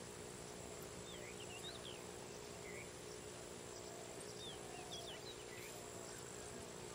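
Faint grassland ambience: a steady insect drone with many short, scattered bird chirps.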